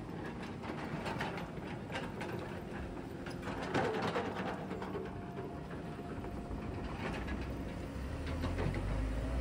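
Hyundai crawler excavator's diesel engine running, with many metallic clanks and knocks and a louder one about four seconds in. Near the end a deeper engine rumble swells.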